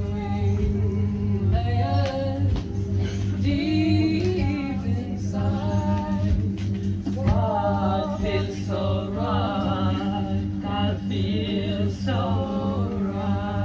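Live singing voices, with wavering, gliding melodic lines, over a steady low drone held throughout.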